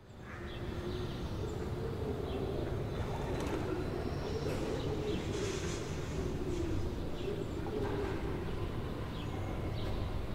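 Riverside city ambience that fades in at the start: a steady low rumble of distant traffic, with birds chirping and calling over it.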